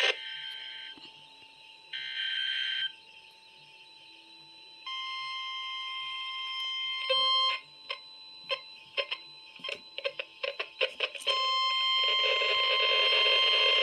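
Weather radio alert coming through a receiver: two short buzzy SAME data header bursts, then a steady warning alarm tone. A rapid run of sharp clicks follows, and a louder alarm sounds near the end.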